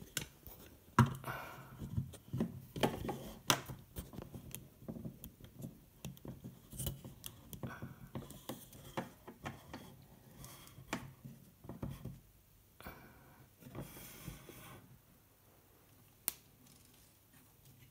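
Hands handling a small plastic RC car chassis and its battery lead: irregular clicks, taps and rustling, with a sharper click about a second in and another near the end.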